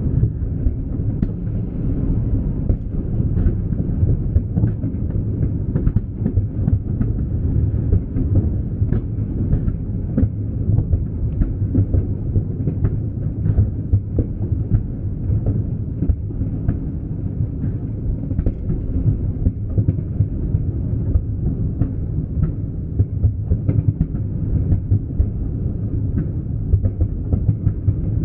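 Large fireworks display in a continuous barrage: booms merging into a steady low rumble, with many sharp cracks throughout.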